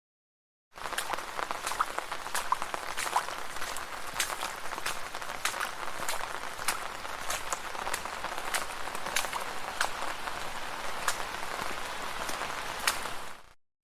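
Steady rain falling on a street, a continuous hiss with frequent sharp drop hits. It comes in after about a second of silence and drops out briefly near the end.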